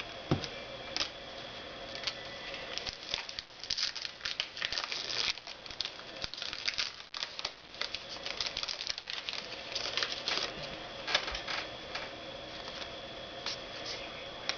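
Trading cards being handled by hand: irregular light clicks, flicks and rustling as cards are slid and flipped, over a faint steady hum.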